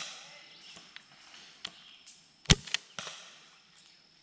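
Airsoft gunfire in woodland: a scattered series of about eight sharp cracks and snaps, the loudest about two and a half seconds in.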